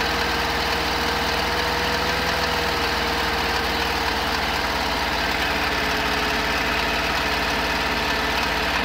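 1972 Volkswagen camper's air-cooled flat-four engine idling steadily, with a repeating knock in the engine.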